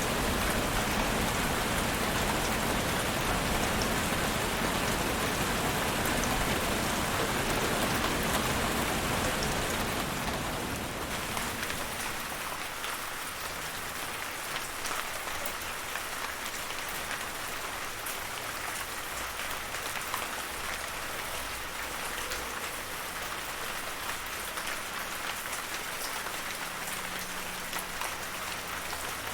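Steady rainfall, a dense hiss of drops with individual drop ticks on top. It becomes somewhat quieter and lighter about ten seconds in.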